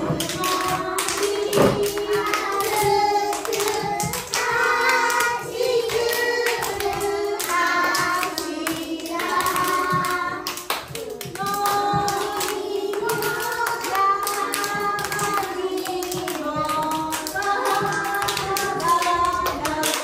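Children singing a Japanese action song together, with many quick hand claps over the singing as they clap hands with partners in time.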